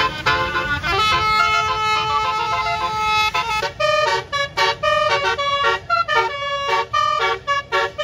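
Bus 'telolet' basuri musical air horn with twelve trumpets playing a tune: long held, overlapping notes for about three and a half seconds, then a quick rhythm of short staccato notes, about three a second. A low rumble runs underneath.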